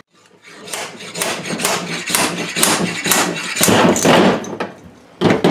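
Slide hammer on a chainsaw crankcase-splitting tool worked by hand: a run of sharp metal knocks, about two to three a second and growing louder, driving the crankcase halves apart. One last loud knock near the end as the case comes free.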